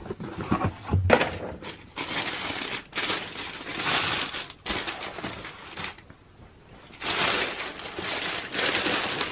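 Tissue paper rustling and crinkling in spells as it is pulled back from a pair of sneakers in a cardboard shoebox, with a light knock about a second in as the box lid comes off.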